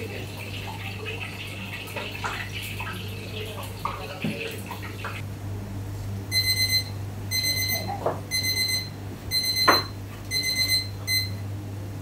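Electronic timer beeping: six short high beeps about one a second, starting about halfway through. Before the beeps there is a steady hiss with light clicks and knocks, over a constant low hum.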